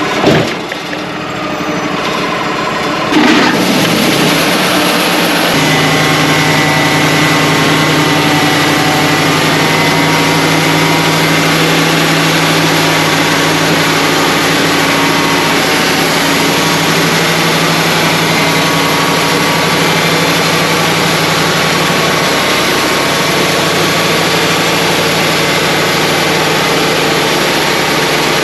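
Wood-Mizer LT35 portable band sawmill running: about three seconds in it comes up suddenly to full speed, then runs steadily under load as the band blade saws along the white pine log.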